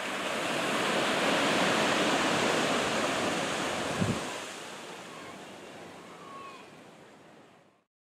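Small waves breaking on a sandy beach: a swell of surf that builds, then ebbs away, with a brief low thump about four seconds in. The sound cuts off near the end.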